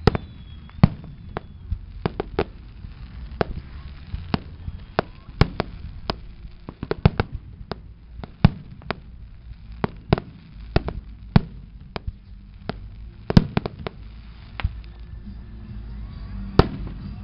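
Aerial firework shells bursting in quick, irregular succession: dozens of sharp bangs, a few much louder than the rest, over a low rumble.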